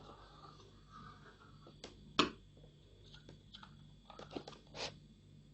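Marker tip rubbing over a sheet of thin plastic cut from a soda bottle, with the plastic crackling as it is handled: one sharp crackle about two seconds in and a few smaller ones near the end.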